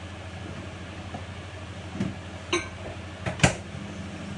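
Steady electrical hum from a kitchen appliance, with a few sharp clinks and knocks of kitchenware; the loudest knock comes about three and a half seconds in.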